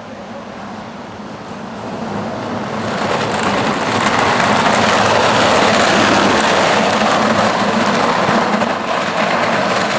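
Wheels of a small unpowered ride-on kart rolling down a rough path, a steady rumbling noise that grows louder over the first four seconds as the kart comes closer, then holds.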